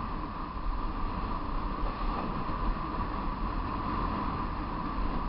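Steady wind rush on the microphone with a low road rumble, from a vehicle moving down a hill road.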